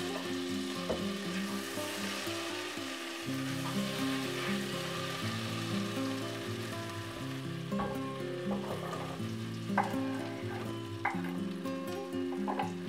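Butter sizzling and frying in an enamel pot on the stove, a steady crackling hiss, with a few light clicks and taps in the second half as ingredients are tipped in from a wooden cutting board.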